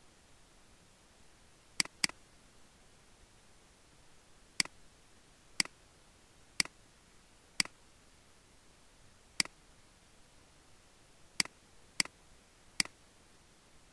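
Computer mouse button clicking about ten times at irregular intervals, including a quick double click about two seconds in, over a faint steady hiss.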